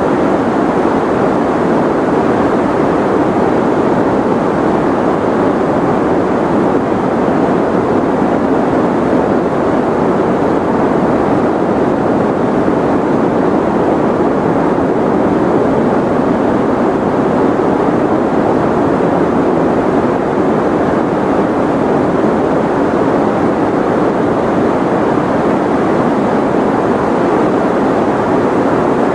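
Steady white noise that never changes, its energy mostly in the middle and lower range so it sounds like a soft rush rather than a bright hiss.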